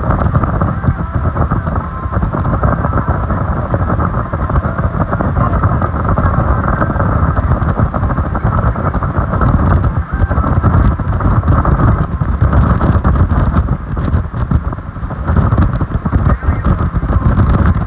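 Speedboat running at speed: a loud, steady rush of engine, wind buffeting the microphone and water spraying off the hull.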